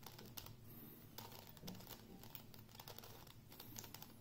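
Faint, irregular clicking of a plastic 2x2 Megaminx (Kilominx) puzzle as its faces are turned by hand.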